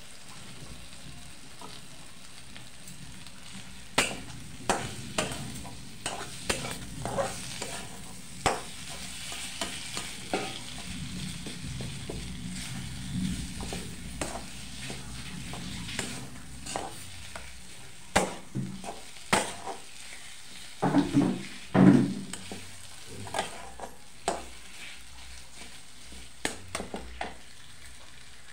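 Metal spatula stirring and scraping in a steel kadhai, sharp clinks of metal on metal over a steady sizzle of food frying in masala. The stirring starts about four seconds in, and the loudest scrapes come about three-quarters of the way through.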